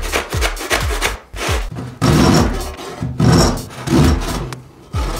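Hand saw cutting back and forth through a tightly compacted aluminum foil ball, the metal scraping against the teeth. Quick, short strokes at first, then longer, slower strokes from about two seconds in.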